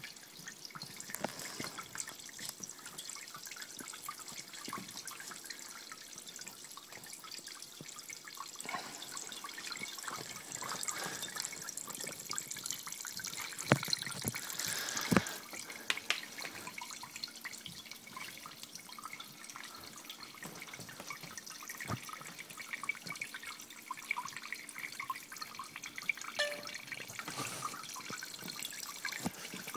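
Water from a Kelvin water dropper trickling and dripping into glass beakers, a steady splashing hiss with many small drip ticks. There are two sharp clicks about halfway through.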